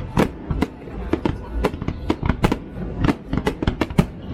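Fireworks bursting in a rapid barrage: many sharp bangs in quick, irregular succession, several a second.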